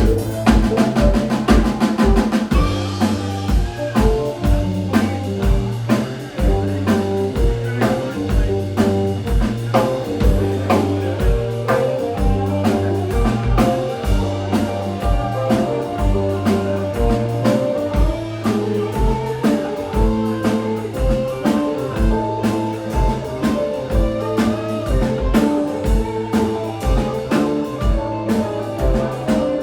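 Live band of electric guitar, bass, drum kit and keyboards playing an instrumental tune, with a steady drum beat under sustained bass and chord notes.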